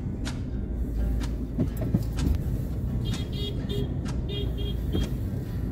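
Steady low rumble of a car driving slowly through busy street traffic, with a few clicks. About three seconds in comes a run of short, high-pitched beeps.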